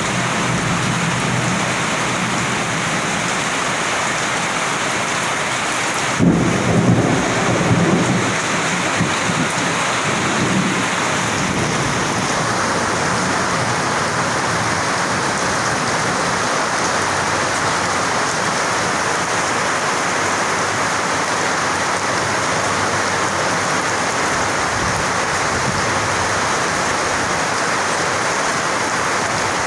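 Steady heavy rain falling, with a loud clap of thunder about six seconds in that rumbles on for a few seconds.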